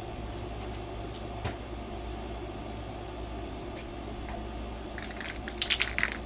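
Steady low background hum. About five seconds in comes a quick run of sharp clicks and rattles, from small objects being handled.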